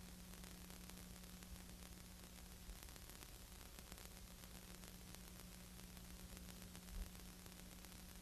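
Near silence: a steady hiss with a low mains-like hum, with no sound of the race, and a faint thump about seven seconds in.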